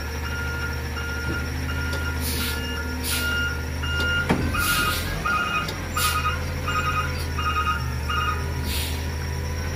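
Peterbilt 320 front-loader garbage truck with its diesel engine running and its reversing alarm beeping about twice a second, as it backs up. About four seconds in there is a sharp knock, after which the beeps sound rougher and stop near the eight-second mark. Several short hisses of air are scattered through.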